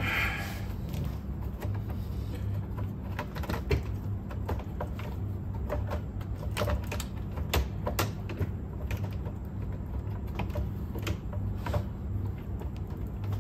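Scattered light clicks and taps of small parts being handled and fitted during reassembly of a cassette deck, over a steady low hum.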